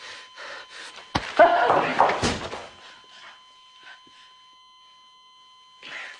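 A sharp thud about a second in, then a second and a half of loud noisy scuffling and clatter. Under it an operating-room monitor holds a steady high electronic tone.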